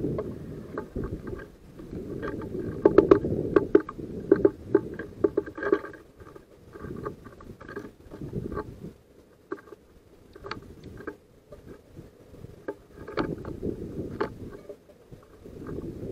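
A great tit and a house sparrow at a wooden platform feeder, their beaks and feet tapping on the wooden tray and seeds: irregular sharp clicks and knocks in bursts, over a low rumble.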